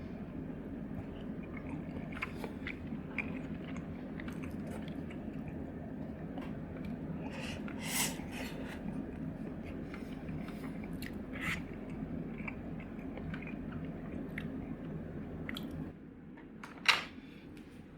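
Eating sounds: chewing with scattered sharp taps and clicks, over a steady low hum. The background drops quieter near the end.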